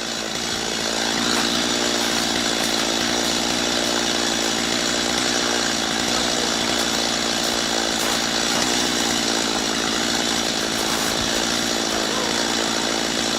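Two-stroke chainsaw running steadily at high revs, cutting into a tree trunk.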